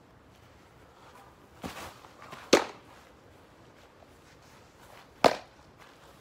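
Baseball popping into a leather glove twice, two sharp smacks about three seconds apart, with a softer knock just before the first.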